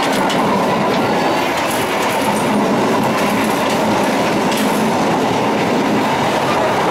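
KA Bengawan economy passenger train running at speed, a steady rumble and rattle of the carriages heard from the vestibule between cars, with wheels clacking over the rail joints now and then.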